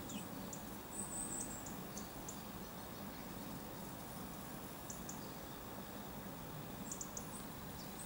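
Dunnock giving short, thin, high-pitched calls, mostly single notes, with a brief run of notes about a second in and a quick group of three near the end, over steady low background noise.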